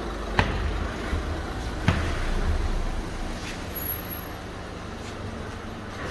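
Citroën C4 Aircross 1.6 HDi diesel engine running at low revs as the car rolls slowly in. Two sharp knocks sound early on, about a second and a half apart.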